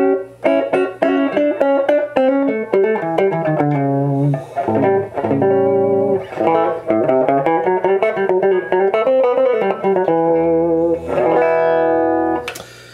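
Electric guitar played through a Marshall JCM2000 DSL100 valve amp head: picked single-note lines with some bent, wavering notes. The amp is running normally under a long play test, with no fault showing.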